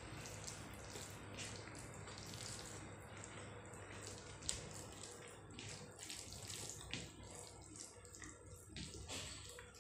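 Fingers mixing rice and curry on a plate by hand: soft wet squishing with scattered small clicks and taps, a couple of them sharper.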